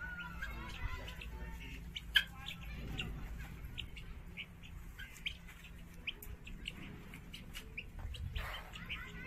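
Caged birds chirping: many short, high chirps, several a second, with a sharp click about two seconds in.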